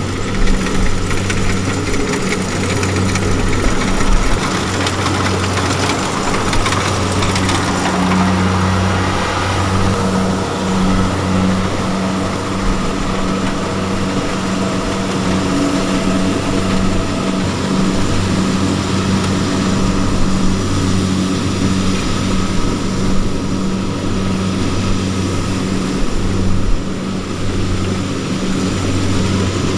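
Kubota farm machine's diesel engine running steadily in the field.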